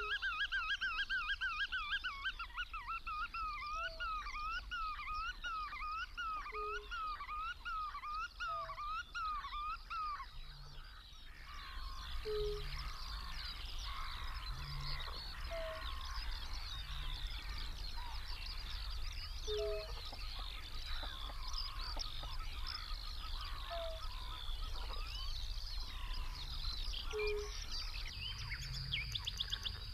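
Wetland birds calling: a single wavering call repeated over and over for about the first ten seconds, then a dense chorus of many birds calling at once, with short low notes every couple of seconds.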